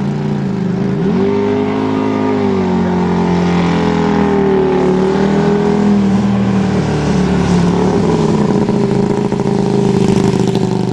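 Superbike racing motorcycle engines running loud at high revs, their pitch climbing and dropping as the bikes accelerate and shift.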